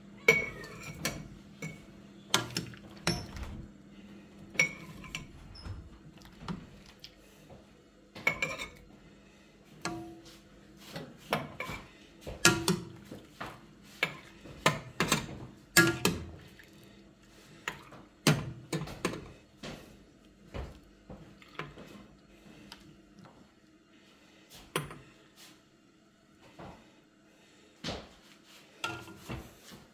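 Metal ladle clinking and knocking against a glass jar and the rim of a granite-coated pot as cooked quince pieces are ladled into the jar. The sharp, irregular clinks come thick and fast for the first twenty seconds or so, then thin out to a few near the end.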